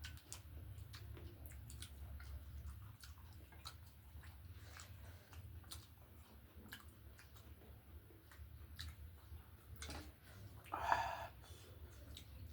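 Faint close-up eating sounds: chewing with many small wet mouth clicks over a steady low hum, and one brief louder sound about eleven seconds in.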